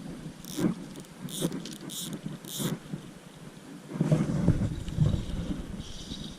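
Footsteps crunching over rough ground with rustling, four steps at a walking pace. A louder stretch of low rustling noise follows about four seconds in.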